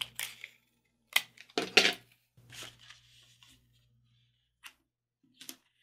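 Paper crinkling and rustling in short, crisp bursts as a printed paper airplane with an LED strip taped along its wings is folded and handled. The loudest burst comes about a second and a half in.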